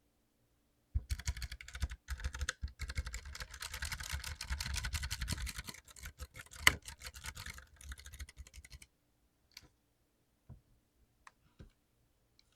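Mechanical keyboard with lubed clicky blue switches being typed on fast, in a dense run of keystrokes, then a few single key presses near the end.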